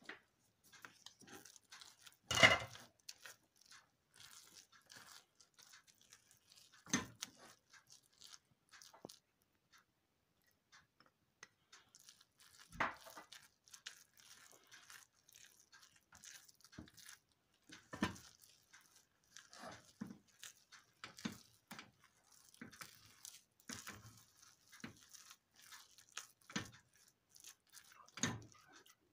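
A spoon stirring thick buttered grain porridge in an aluminium pot: soft, irregular scraping and squelching, with a few sharper knocks of the spoon against the pot, the loudest about two and a half seconds in.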